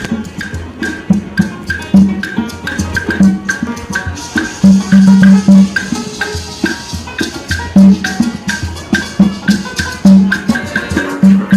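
Upbeat music with a steady beat of bass notes, drums and rattling hand percussion such as shakers.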